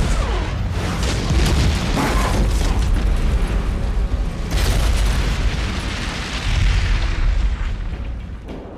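Film sound of a house exploding: a heavy, loud rumbling blast carrying on from the first detonation, then a second sharp blast about four and a half seconds in. The rumble fades near the end.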